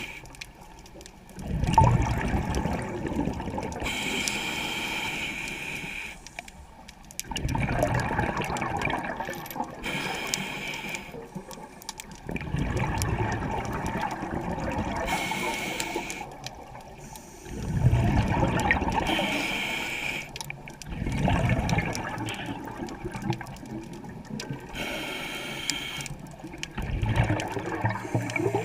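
Scuba diver breathing through a regulator underwater. A short hissing inhale is followed by a longer rush of bubbling exhaust, and the cycle repeats about every five seconds.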